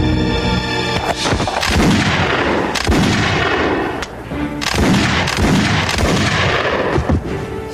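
Gunfire sound effects: a long run of sharp shots with echoing tails, starting about a second in, over background music.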